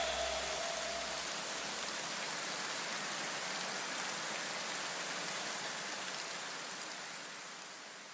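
A steady, even hiss left in the electronic background music after its beat cuts out, with the music's last tones dying away in the first second or two, then fading out slowly toward the end.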